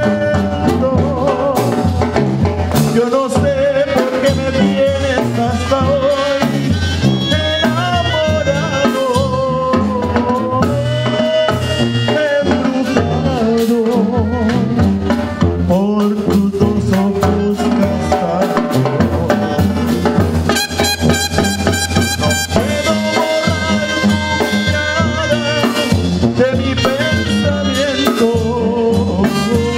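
Live banda sinaloense, a Mexican regional brass band, playing a dance tune: trumpets and clarinets carry the melody over sousaphone bass and a steady drum beat.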